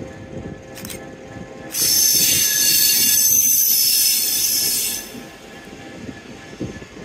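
Locomotive-hauled passenger train running into a platform with a low rumble of wheels on rail. Its coaches give a loud high-pitched squeal with several tones for about three seconds as it brakes, starting suddenly and cutting off.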